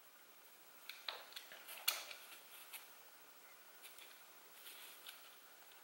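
Faint light clicks and taps of hard 3D-printed plastic parts being handled, a handful in the first three seconds with the sharpest just before two seconds in, then a few softer ones.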